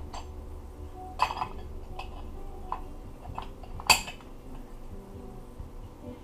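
Steel automatic-transmission parts clinking and knocking together as they are handled and fitted during reassembly: several separate sharp metallic clinks, the loudest one ringing briefly about four seconds in.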